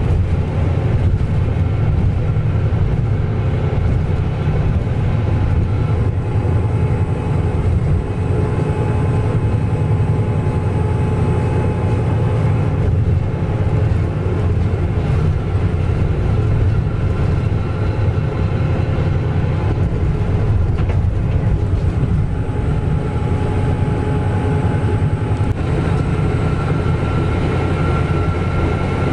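Cabin noise of a Mitsubishi-engined medium bus driving at steady speed on the highway, heard from inside: a steady low drone of engine and road noise, with a few faint steady whining tones above it.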